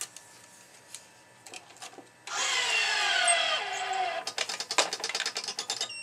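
Racket stringing machine pulling tension on a tennis racket's main string: a loud whine that falls in pitch for about two seconds, then a quick run of rapid clicking.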